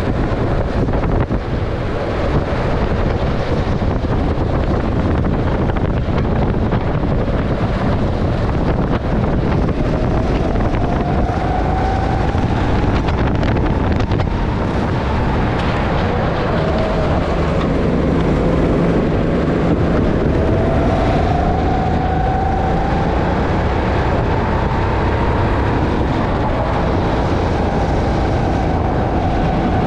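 Honda 270 cc single-cylinder four-stroke kart engine running under racing load, its pitch rising and falling several times as the kart accelerates and slows, with wind buffeting the microphone.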